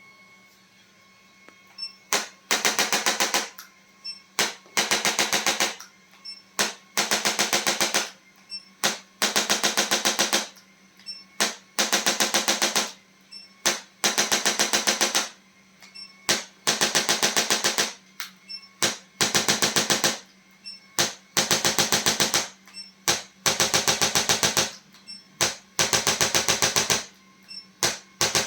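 Handheld electric percussion instrument tapping rapidly in repeated bursts of about a second each, a dozen or so, starting about two seconds in. A faint steady hum runs underneath.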